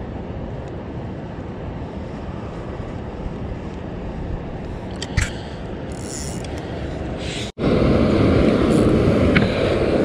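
A steady low rushing of wind and moving water, with a few light clicks, cuts off abruptly. A louder steady rush of water pouring over a concrete culvert takes its place.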